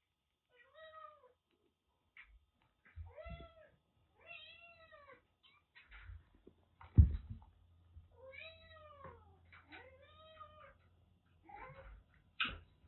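Kitten giving a string of short, high meows, each rising and falling in pitch, as it squares up to a larger cat. A single dull thump about seven seconds in is the loudest sound.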